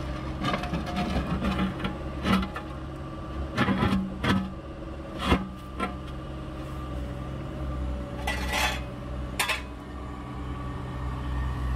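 Excavator engine running at a steady low hum, with scattered metallic clanks and scraping as the bucket works at the cut-out asphalt.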